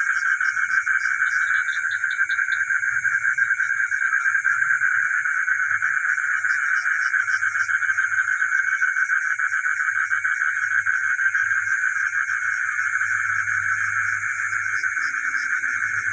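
Dense night chorus of frogs calling continuously, a thick mass of rapid overlapping calls, with a thinner, higher steady trill above it. A brief run of quick chirps cuts in about two seconds in.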